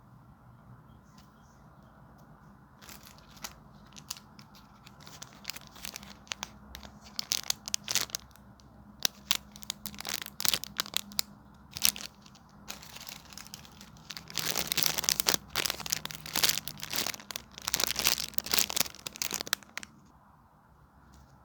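Crinkling and crackling of a homemade squishy being squeezed and handled, in irregular bursts that grow denser and louder and then stop shortly before the end.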